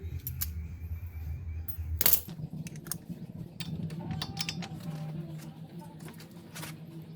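Metal hand tools clinking and clicking against the wheel hub and axle nut, with one sharp metallic knock about two seconds in.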